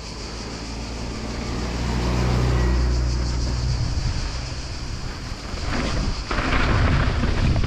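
Wind rushing over an action camera's microphone as a mountain bike rolls fast down an asphalt road. About six seconds in the tyres run onto loose dirt, and a gritty crunch joins the wind.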